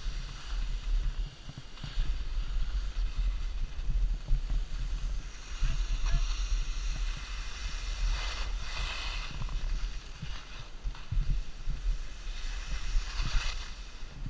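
Wind buffeting the microphone while skiing downhill, a steady low rumble, with the hiss of skis scraping through snow on the turns swelling up several times, loudest past the middle and near the end.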